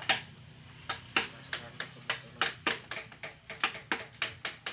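Wooden mallet driving a chisel into teak, a sharp knock with each blow. The blows are sparse in the first second, then come about four a second.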